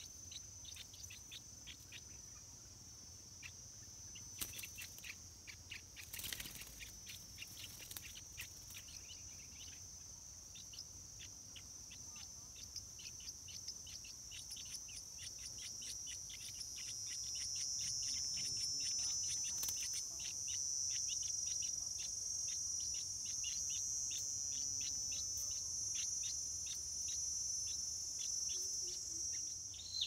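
Stripe-throated bulbul chicks giving rapid, repeated short cheeps, several a second. Behind them is a steady high insect drone that grows louder about halfway through.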